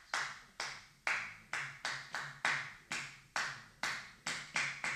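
A man clapping his hands, beating out a 9/8 rhythm as a steady run of sharp claps, about three a second.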